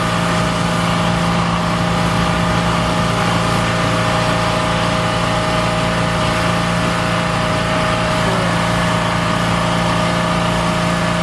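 An engine running steadily at constant speed with a steady hiss over it, neither rising nor falling.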